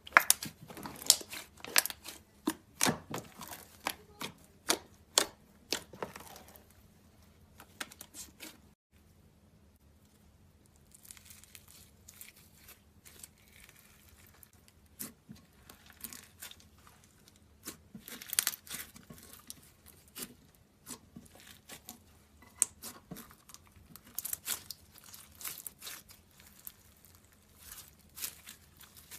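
Crunchy slime being squeezed and pressed by hand, giving runs of crackling, popping clicks. The clicking is dense for the first few seconds, thins out in the middle, and picks up again in clusters towards the end.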